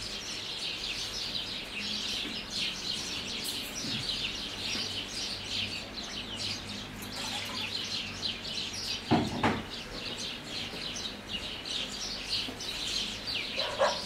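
A chorus of many small birds chirping and twittering continuously, with two brief dull thumps about nine seconds in.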